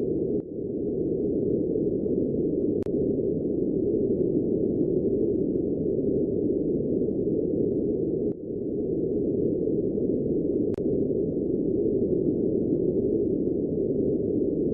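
Electronic space-ambience drone presented as the sound of Uranus's moon Belinda: a dense, low, steady hum with no clear pitch. It briefly drops out about half a second in and again about eight seconds in, and there are two faint clicks.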